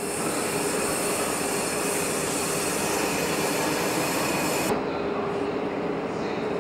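Locomotive-hauled passenger coaches rolling past, a steady running noise of wheels on rail with a faint constant hum. About two-thirds of the way through, the sound changes abruptly and becomes duller.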